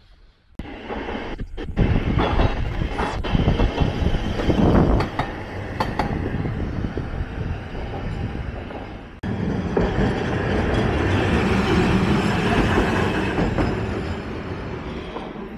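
Hankai Tramway streetcars running past on street-level track, steel wheels rumbling loudly on the rails with a few sharp clicks. First a Mo701-type car, No. 704, then after an abrupt change about nine seconds in, the 1963 Mo351-type car No. 355, its running noise fading near the end.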